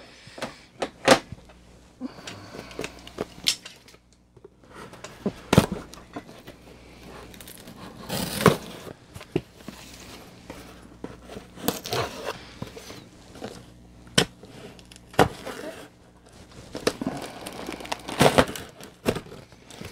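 Cardboard shipping box being handled and its packing tape torn open, with scattered rustles, taps and scrapes of the cardboard.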